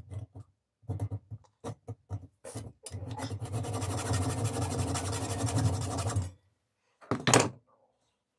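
Rasping and scraping of workshop tool work: several short strokes, then a steady rasping run of about three seconds. A brief, louder scrape comes about a second later.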